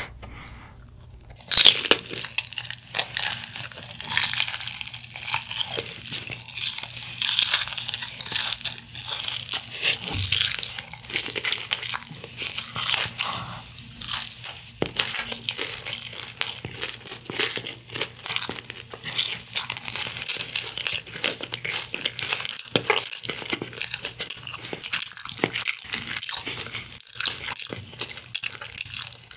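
Close-miked biting and chewing of crispy Kyochon Honey Combo fried chicken: crunching of the fried coating, with a loud first bite about a second and a half in, then steady crunchy chewing.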